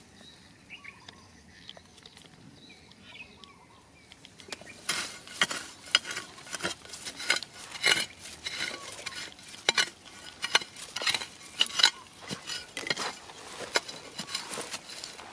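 The metal blade of a small hand digging tool striking and scraping into dry, stony soil. The strikes come irregularly, about two or three a second, and start about four seconds in.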